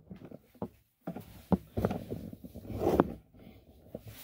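Several light knocks and clicks over faint rustling.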